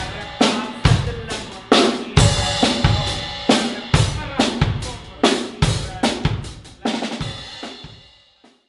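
Rock drum kit played hard: bass drum and snare hits with cymbal crashes about twice a second, each ringing on. The playing stops and the ringing dies away near the end.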